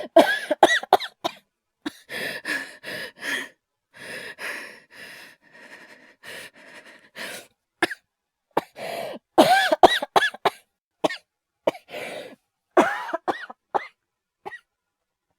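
A man's acted coughing fits, in clusters of short, sharp coughs. The coughs are loud at the start and again through the second half, with a softer, breathier run of coughing in the middle.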